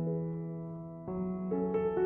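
Soft background piano music: a held chord fades away, then new notes are struck about halfway through.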